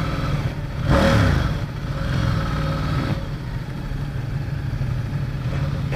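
Ducati XDiavel's 1262 cc L-twin engine running at low road speed. About a second in there is a brief louder surge whose pitch falls away, like a throttle roll-off. Heard through a helmet-mounted microphone.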